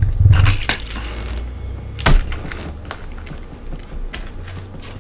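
Pizza cutter wheel rolling through a baked pizza crust: a crunching scrape in the first second and a half, a sharp knock about two seconds in, then a few fainter clicks.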